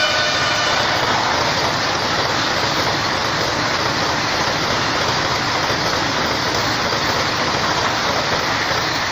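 Train 18 (Vande Bharat Express) coaches rushing past: a steady, loud noise of wheels on rails and rushing air.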